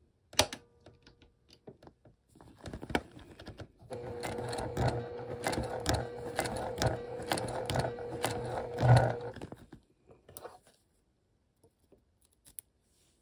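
Electric sewing machine stitching slowly through thick layers of vinyl and interfaced lining: a sharp click about half a second in and a few separate stitches, then from about four seconds a steady motor hum with regular needle strokes, a couple each second, stopping near ten seconds.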